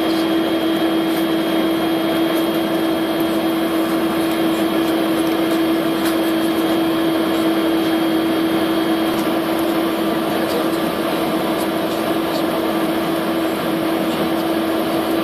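Tupolev Tu-204 airliner taxiing, heard from inside the cabin: its twin turbofan engines and cabin air make a steady hum with a constant droning tone. A faint high whine fades out about nine seconds in.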